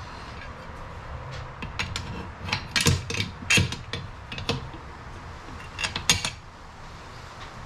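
Irregular mechanical clicks and knocks of hand work on parts, with a few louder knocks about three seconds in and again near six seconds.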